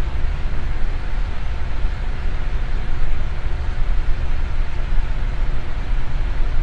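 Electric fan running steadily: an even, continuous whoosh, heaviest in the low end, with a faint steady motor hum.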